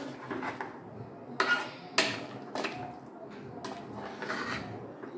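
Metal cookware clanking: about five sharp knocks and scrapes of pot, lid and utensil, spaced irregularly.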